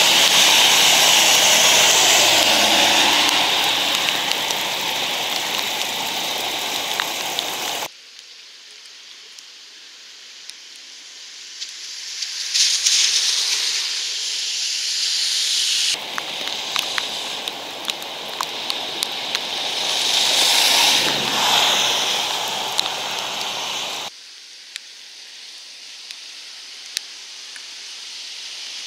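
Storm water boiling up around a manhole cover with a loud, steady rush: the storm sewer is overwhelmed by flash-flood rainfall and is pushing the water back out. The rush cuts off sharply after about eight seconds to quieter rain ambience with small ticks. A loud rushing stretch returns midway and cuts off again, leaving the quieter ambience at the end.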